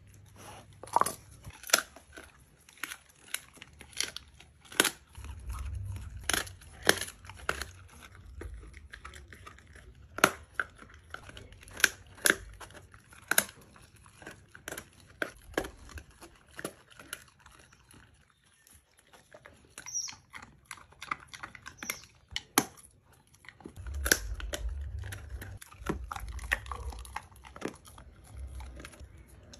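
A chocolate Labrador chewing raw meat: irregular sharp crunches and wet tearing as it works the piece between its teeth.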